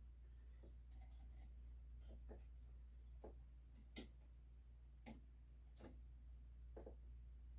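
Sparse light clicks and taps of the fan's mounting clips and frame being worked onto the heatsink, the two sharpest about four and five seconds in, over a low steady hum.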